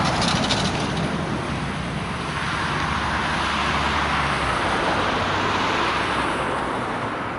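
Road traffic: cars passing, a steady rush of tyre and engine noise that swells between about two and six seconds in, then fades.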